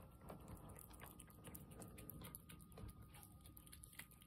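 A cat eating wet food from a plate: faint, quick chewing and smacking clicks, several a second.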